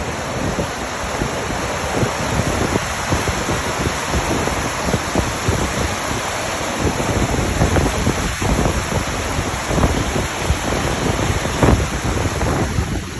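A waterfall's steady rush of falling water, with gusts of wind buffeting the microphone.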